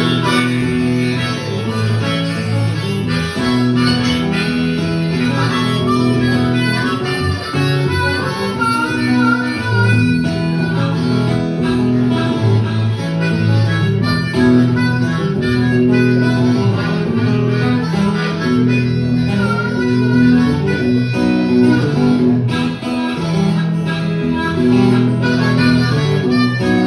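Instrumental break of an acoustic blues song: a harmonica plays a solo over acoustic guitar accompaniment.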